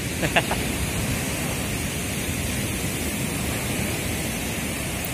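Steady rush of ocean surf breaking on the beach, mixed with wind on the microphone.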